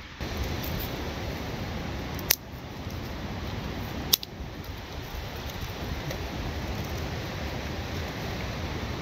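Strong wind rushing over the microphone, with two sharp clicks about two and four seconds in.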